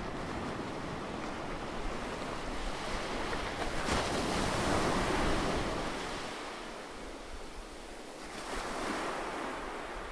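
A rushing, surf-like noise with no distinct tones. It swells to its loudest about four to six seconds in, eases off, and surges again near nine seconds.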